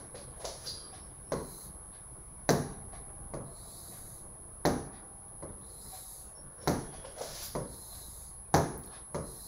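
Stylus tapping and knocking against the glass of an interactive touchscreen display while lines are drawn: a series of short, sharp taps at irregular intervals, about one every second or so.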